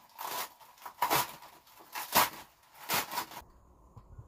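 Dry kindling of sticks and leaves being snapped and crushed by hand beside a campfire, four crackling snaps a little under a second apart, then it cuts off.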